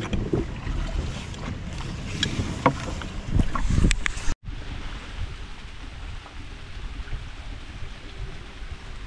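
Handling noise as a hand rubs and knocks against the camera, with irregular knocks and low rumbles. After a sudden break, steady wind noise on the microphone mixes with water sounds around a small wooden boat.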